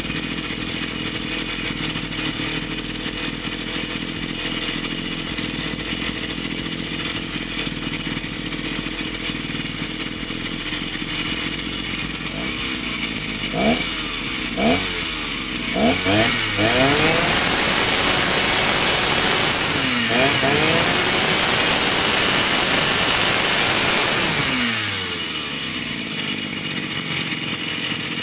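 Freshly rebuilt Honda UMK40 two-stroke brush cutter engine idling, then blipped up and down on the throttle three or four times about halfway through and held at high revs for about eight seconds before dropping back to idle near the end.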